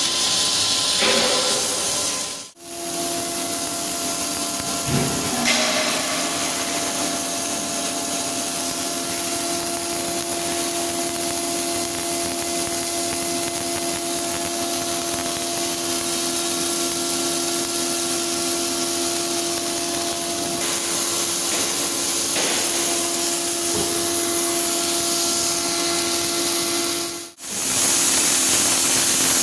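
Electric arc welding on an automated welding gantry: a continuous crackling hiss from the arc over a steady electrical hum. It breaks off abruptly twice.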